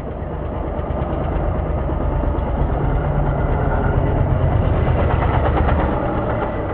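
Snowdog B13 motorized tracked snow sled running at speed under power. Its engine grows steadily louder as it approaches, is loudest as it passes close by, then eases slightly.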